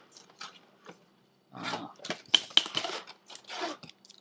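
Cardboard and plastic packaging of a graphics tablet being handled: irregular rustling and scraping with two sharp clicks a little past the middle.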